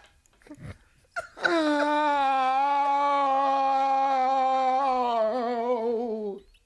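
A man's long, drawn-out mock-sobbing wail, sounding like a wounded animal. It is one held note that slowly sinks in pitch and wavers near the end before it stops.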